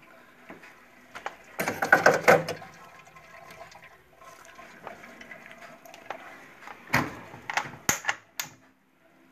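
Knocks and a noisy rush from an old Brastemp 320 refrigerator being handled. A loud rush comes about two seconds in, then a faint steady hum, and a quick run of five sharp clicks and knocks near the end.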